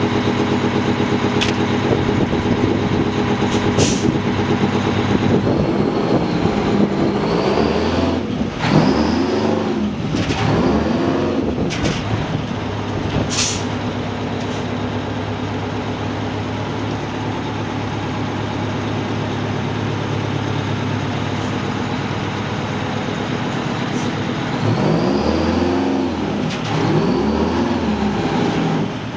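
A 1974 Pierce fire engine's naturally aspirated Detroit Diesel 8V71, a two-stroke V8, running as the truck moves off. Its pitch rises and falls in two quick revs about a quarter of the way in, and in two more near the end. A couple of short sharp hisses stand out early and about halfway through.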